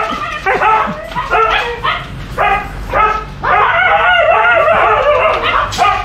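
Several caged Siberian huskies barking and yipping in short pitched calls, one or two a second. About halfway through, several dogs call over each other for a second or two.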